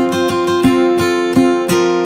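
Background music: a guitar strummed in a steady, even rhythm over sustained chords.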